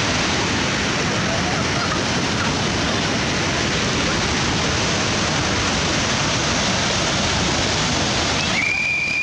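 Loud, steady roar of a flooded river: dam-release water rushing and churning in white-water rapids. Near the end the rushing thins briefly and a short high tone sounds.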